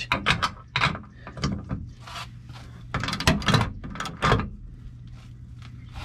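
Half-inch Snap-on ratchet clicking in short irregular bursts as it is worked back and forth on a suspension bushing bolt. The clicking thins out after about four and a half seconds.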